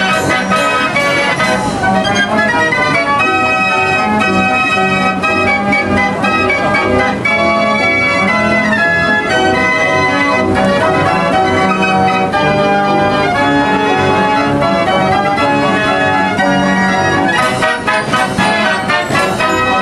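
Organ music playing a tune, loud and unbroken, with the notes changing rapidly.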